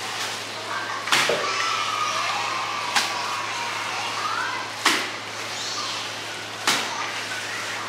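Handfuls of raw pork-and-shrimp siu mai filling slapped down hard into a large stainless-steel bowl: four wet smacks about two seconds apart. The mince is being thrown to work it until it turns sticky and binds.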